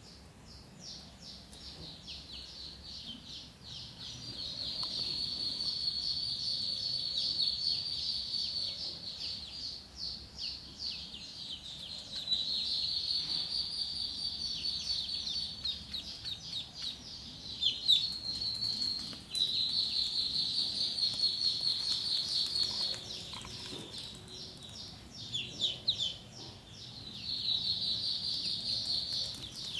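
A group of ducklings peeping: a dense stream of rapid, high-pitched peeps that grows louder and softer in stretches.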